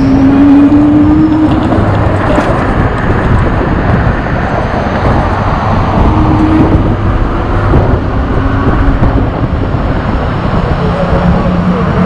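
Steady rush of wind and road noise from riding an e-bike through city traffic, with car engines passing close by, one rising in pitch near the start.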